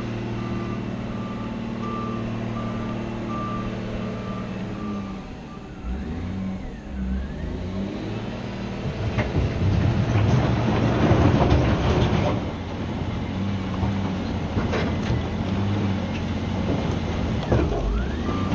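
Caterpillar 966G wheel loader's diesel engine running with its reversing alarm beeping steadily for the first four seconds or so. The engine note then shifts, and about nine seconds in a louder, rougher stretch of engine and rock noise lasts about three seconds before the backup beeps start again near the end.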